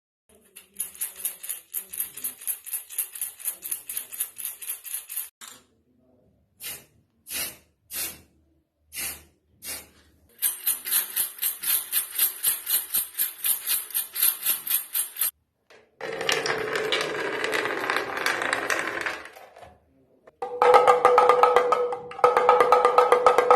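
A series of separate percussion takes. First a fast, even rattle with a bright, high jingle. Then five single strikes, a second fast rattle, a few seconds of dense rough noise, and near the end rapid strokes on something with a clear ringing pitch.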